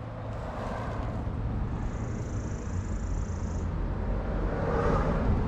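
Log splitter's gas engine running steadily, a low hum that grows slightly louder toward the end, with a thin high hiss for about two seconds in the middle.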